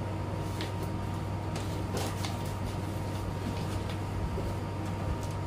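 Steady hum of a room air conditioner, with a few faint clicks and rustles as small items are handled and packed into a handbag.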